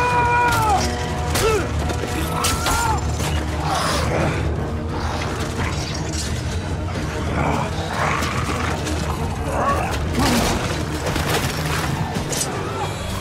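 Film battle sound mix: a steady low musical score under repeated clashes and impacts of close fighting, with high, curving shrieks in the first few seconds.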